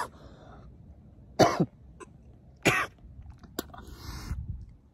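Man coughing from a cannabis vape hit: a few harsh single coughs a second or so apart, then a drawn-out breath near the end.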